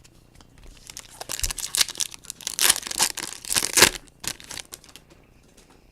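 Foil trading-card pack wrapper being torn open and crinkled: a run of crackling rustles, loudest just past the middle and dying away near the end.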